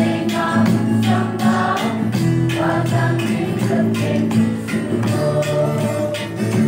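Live group singing backed by long barrel drums beating a steady rhythm of about two to three strokes a second, with guitar.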